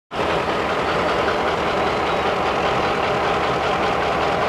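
Diesel freight locomotive's engine running steadily as it leads a freight train past below. The sound cuts in suddenly right at the start.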